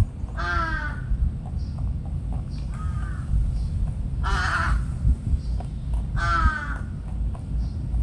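A bird calling four times, about two seconds apart: short harsh calls that fall slightly in pitch, the third the loudest, over a steady low rumble.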